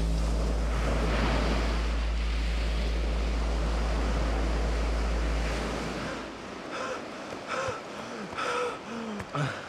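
Wind and waves over open water, under a low steady drone that fades out about six seconds in. Then a man panting as he runs, in four or five short voiced gasps.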